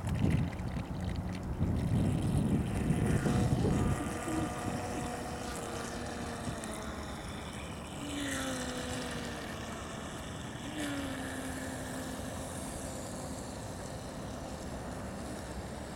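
Traxxas Spartan RC speedboat's brushless electric motor whining as the boat runs across the water, the whine sliding down in pitch several times. A loud low rumble fills the first four seconds.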